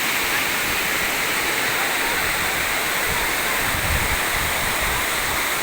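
Waterfall pouring heavily: a loud, steady rush of falling water, with a low rumble swelling briefly in the middle.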